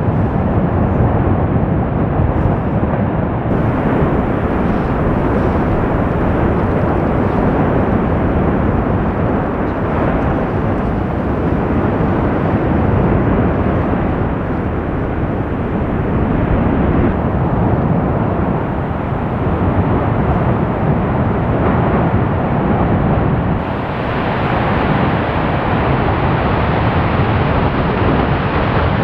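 Lava fountain of the Fagradalsfjall fissure eruption: a loud, steady, deep rushing rumble of lava and gas jetting from the vent. Its tone shifts abruptly a few times.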